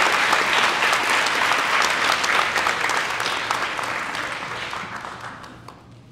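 Audience applauding, the clapping gradually dying away over the last few seconds.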